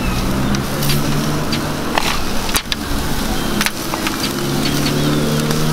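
A vehicle engine running at a steady pitch, a second engine note joining about four seconds in, with a few sharp clicks over it.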